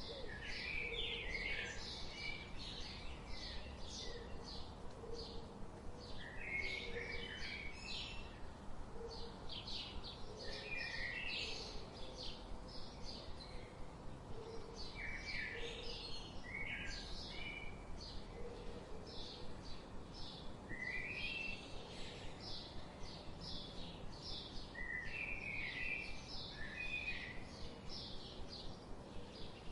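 Several wild birds singing together, a dense stream of quick high chirps and tweets, with a short warbled song phrase coming back every few seconds and soft low notes underneath.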